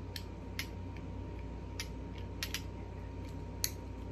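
Small plastic fidget toy being fiddled with in the hands, giving irregular light clicks about every half second to second, over a steady low hum.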